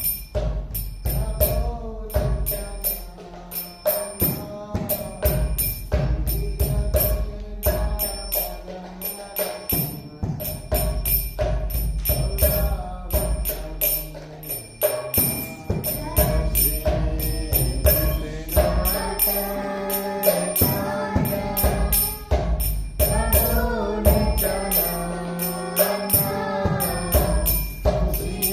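Devotional chant-style music: voices singing over a steady, rhythmic percussion beat and a bass line, the singing fuller from about halfway through.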